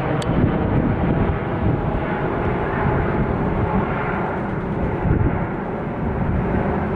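Jet noise from the two GE90-115B turbofans of a Boeing 777-300ER on landing approach: a steady, dense rumble that holds at the same loudness throughout.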